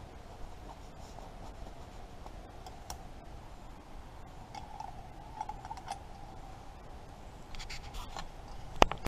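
Scratching and rubbing of a leather work glove being pulled onto a hand, with scattered small clicks over a faint steady hum. A single sharp click near the end is the loudest sound.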